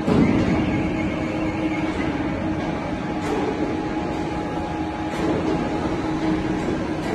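Two-roll rubber mixing mill running empty after its main drive has been started, its motor and gear drive giving a steady drone with a constant hum. There is a brief louder bump right at the start.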